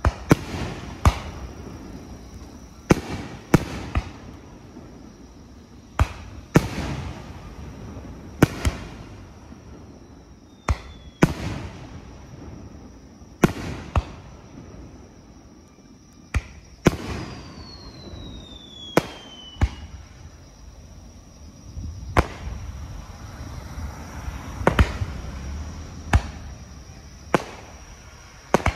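Aerial firework shells bursting in a rapid series, with sharp booms every second or two, each trailing off in an echo. A falling whistle sounds about two-thirds of the way through.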